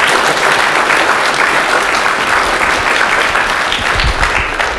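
Lecture-hall audience applauding steadily, the clapping starting to die away near the end.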